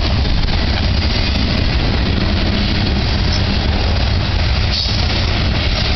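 Covered hopper cars of a grain train rolling slowly past close by, a steady low rumble of steel wheels on the rails.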